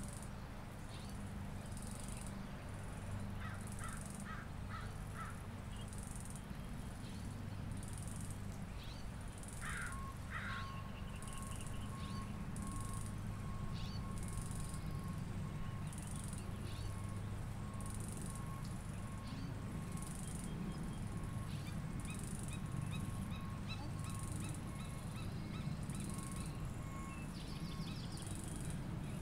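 Outdoor spring birdsong in a park, with crow-like caws and other bird calls over a steady low hum. A high chirp repeats about once a second, and a long steady tone sounds through much of the middle.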